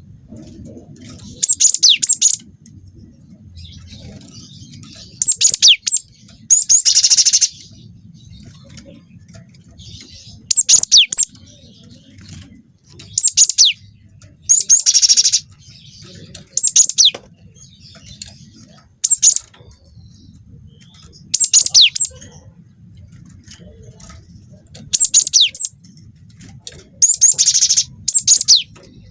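Cinereous tit (gelatik batu) song played as a bird lure: short, loud, high-pitched phrases of a few quick descending notes repeating every two to three seconds, with a harsher rasping call among them now and then. A faint low rumble sits beneath the gaps.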